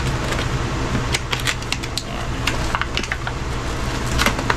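Tightly sealed packaging being handled and worked open by hand: a scatter of short, sharp clicks and crackles over a steady low hum.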